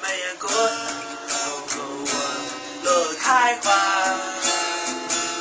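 An acoustic guitar strummed while a man sings along with it.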